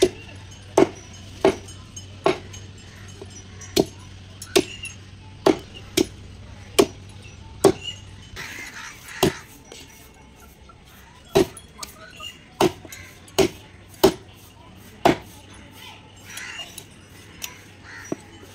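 Heavy broad-bladed knife chopping through a large katla fish on a round wooden chopping block, the strikes coming regularly about every three-quarters of a second as the body is cut into steaks through the backbone. The chopping pauses for about two seconds near the middle and again briefly near the end.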